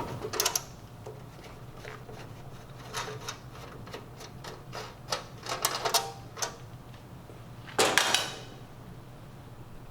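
Light clicks and taps of hand-tool work on the underside of a countertop sandwich grill as its feet and bottom-cover screws are taken out, with a louder, longer noise of about half a second near the end as the cover is handled.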